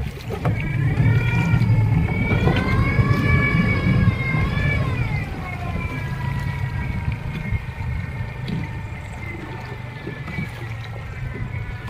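Fishing boat's motor running with a whine over a low rumble. The whine rises in pitch a couple of seconds in, drops again about five seconds in, then holds steady.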